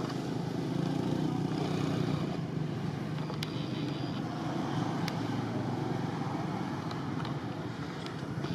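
Steady low engine rumble of motor traffic, swelling slightly about a second in, with a couple of faint sharp ticks.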